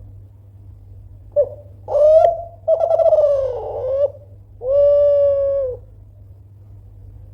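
Kelantan-strain spotted dove (tekukur) cooing: one loud phrase of four notes starting about a second and a half in, a short note, a clipped note, a longer wavering note and a long steady final coo.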